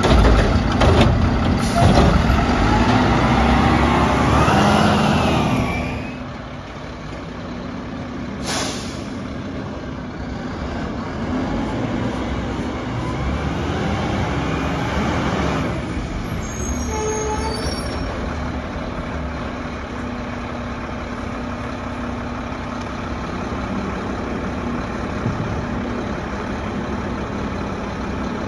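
Mack LR front-load garbage truck with a Curotto Can arm: the engine runs hard with rising pitch as the arm cycles, then drops to a lower level about six seconds in. A sharp air-brake hiss comes about eight seconds in, the engine swells again as the truck moves off, then it settles into a steady idle.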